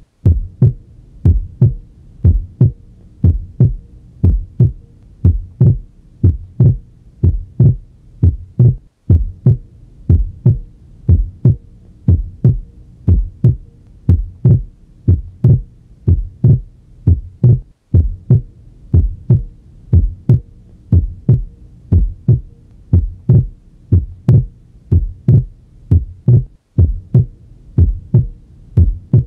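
Heart sounds over the pulmonic area: a steady lub-dub rhythm in which the second sound (S2) splits into aortic and pulmonary components on inspiration and merges into a single sound on expiration. This is physiological splitting of S2. The beats pause briefly about every nine seconds.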